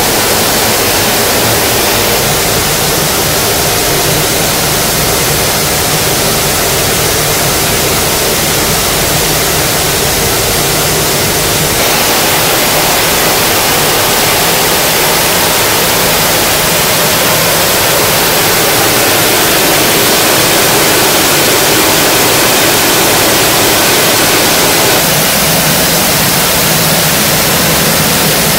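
Dal-processing machinery around a Meyer color sorter running: a loud, steady hiss with a low machine hum beneath it.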